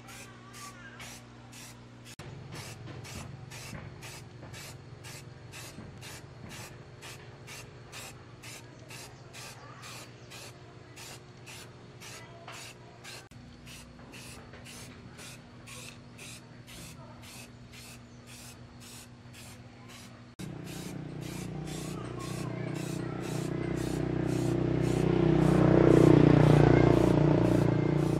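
Aerosol spray-paint can hissing as green paint is sprayed onto a diesel engine's parts, over a steady low hum. About twenty seconds in, a louder low drone comes in and swells.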